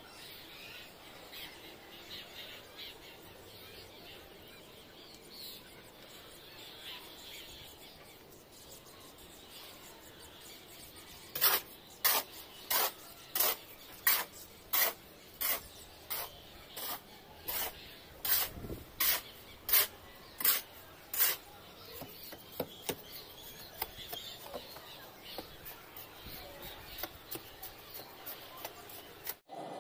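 A run of about eighteen sharp knocks, close to two a second, lasting about ten seconds from roughly a third of the way in, over faint steady outdoor background.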